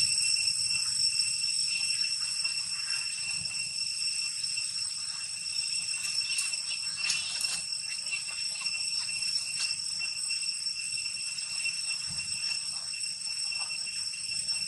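A steady, high-pitched outdoor insect drone, with a few faint soft clicks and rustles.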